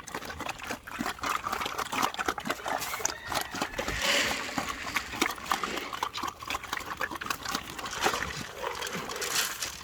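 Pigs eating wet slop: a constant, irregular run of wet chomping and slurping.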